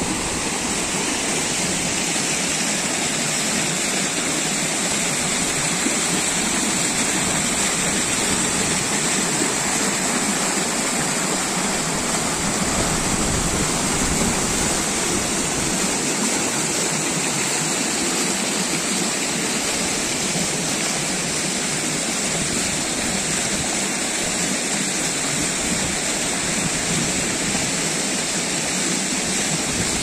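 Snowmelt-fed seasonal mountain waterfall in spate, with a steady, even rush of falling water.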